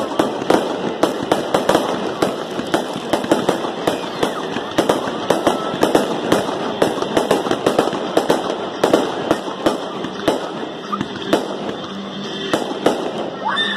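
Fireworks display: a rapid, continuous string of bangs and crackles from aerial shells bursting, several a second, thinning somewhat near the end.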